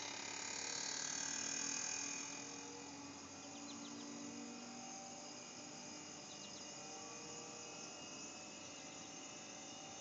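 Carrier 25VNA Infinity modulating heat pump's outdoor unit starting up: a steady low hum with a high hiss that swells in the first two seconds and then drops away.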